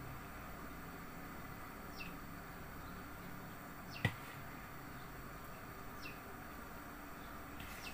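A metal spoon scraping yogurt out of a plastic tub and tapping on a ceramic bowl, faintly, about every two seconds. The sharpest click comes about four seconds in.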